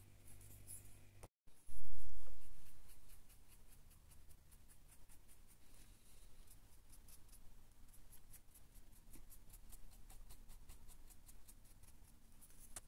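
Stiff paintbrush dry brushing a 3D-printed model, its bristles scratching back and forth at about four strokes a second. About two seconds in there is one loud low thump.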